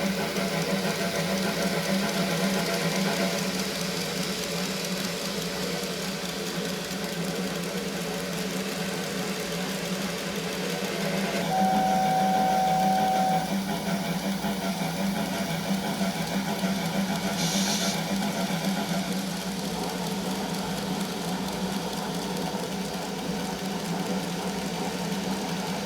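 N-scale model steam train running with a sound box playing steam locomotive effects over a steady mechanical hum. About twelve seconds in, the sound box gives a steam whistle lasting about two seconds, and a short hiss follows near eighteen seconds.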